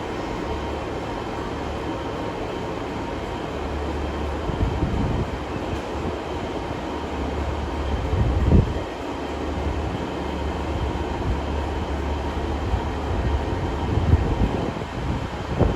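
Great Western Railway passenger train running through the station: a steady low rumble, with a few heavier thumps.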